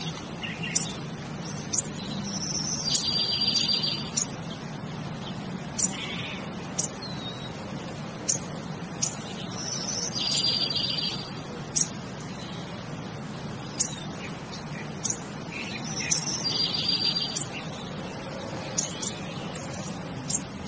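Wild birds chirping, with short sharp high chirps and a buzzy trill about a second long that repeats roughly every seven seconds, over a steady low hum.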